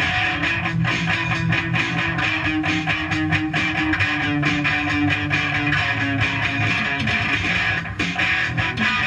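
A band's song played back from a cassette tape on a Fisher Studio-Standard stereo double cassette deck, with a brief drop in level near the end.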